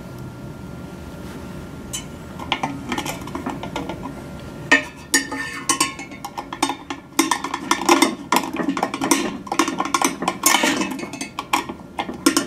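Screwdriver driving small metal screws and washers into a metal radio hood and mounting bracket: a busy run of metallic clicks, scrapes and clinks starting about two seconds in, growing denser after about five seconds.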